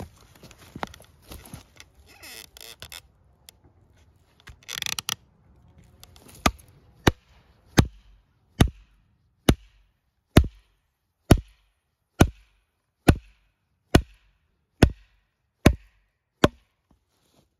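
Thirteen sharp, evenly spaced wooden knocks, a little under one a second, from blows driving a carved green-wood leg into a bored hole in a white birch chopping-block round. Before them come some handling rustle and a brief scrape.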